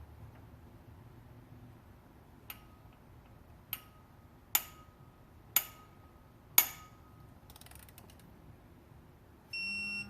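Digital torque-angle wrench turning a bolt through its final 90 degrees: a series of sharp clicks about a second apart, growing louder, each followed by a brief ringing tone. Near the end comes one steady beep signalling that the target angle has been reached.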